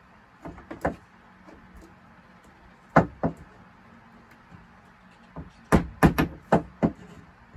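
Ball-peen hammer tapping the rivets of a chainsaw chain link to peen (mushroom) them over and close the loop without a rivet spinner. Short, sharp metal taps in uneven clusters: three about half a second in, a pair about three seconds in, and a quick run of five or six near the end.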